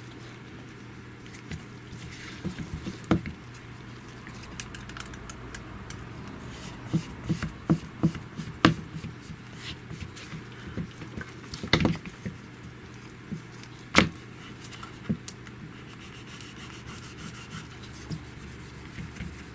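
Handling noise from working a screen protector onto a phone: scattered light taps and clicks with some rubbing, a few sharper clicks standing out, over a faint steady hum.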